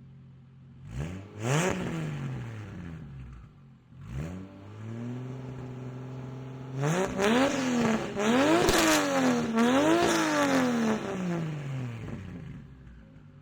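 Turbocharged Toyota JZ straight-six in a Lexus IS300, running through a 3-inch straight-pipe exhaust, idling and being free-revved: a single rev about a second in, another around four seconds, then three quick revs in a row before it drops back to idle.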